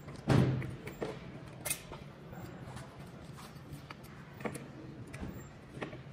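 Handling knocks as a treadmill drive motor is worked loose and lifted out of its metal frame: a heavy thud just after the start, a sharp click a little before two seconds, then a few light taps.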